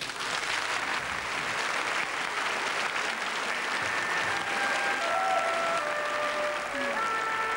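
Audience applauding steadily. An orchestra comes in with held wind notes about halfway through.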